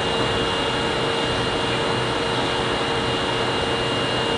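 Steady whirring hum and hiss with a constant high whine: a subway train standing at the platform, its air conditioning and onboard equipment running.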